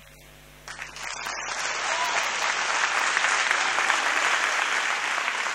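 Audience applauding: the clapping starts about a second in, builds quickly and holds as steady applause.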